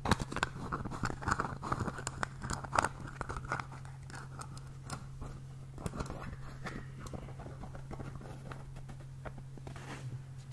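Fingers handling and scratching a small green plastic container right against the microphone: a busy run of crackly clicks and scrapes, loudest in the first few seconds, then softer scratching.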